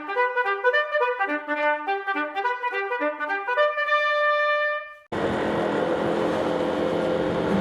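Short brass-sounding intro jingle: a quick run of notes ending on a long held note that fades about five seconds in. Right after it a loud, steady rushing noise with a low hum cuts in suddenly.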